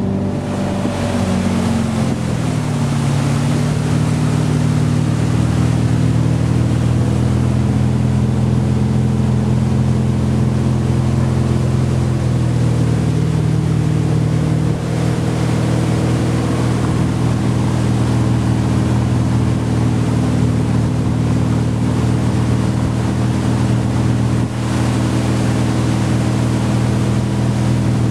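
Motorboat engine towing a wakeboarder, settling to a steady pitch after the first couple of seconds and then running steadily at towing speed, with the rush of wind and water over it.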